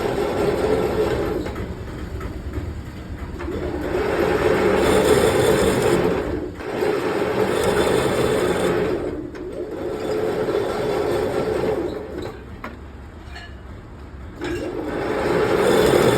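A machine tool running, its mechanical noise swelling and easing in long cycles every few seconds.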